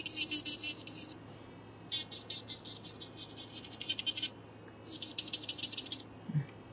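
Serio electric nail drill's thin bit working along toenail cuticles and calluses, making three bursts of rapid high-pitched scratching as it grinds off the buildup, with short pauses between passes.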